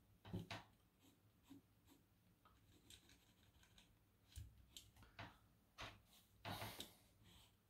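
Faint scratching of a soft graphite pencil lead shading on paper, in short irregular strokes with a longer, louder stroke near the end.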